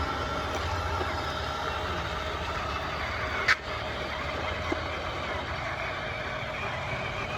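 Radio-controlled model construction vehicles running: a steady mechanical drone with faint whines, and a sharp click about three and a half seconds in.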